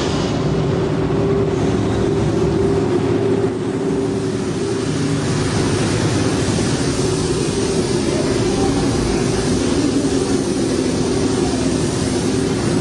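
Loud, steady rush of noise and hum from a Test Track ride vehicle running through its extreme-conditions test chambers, with a brief hiss at the start.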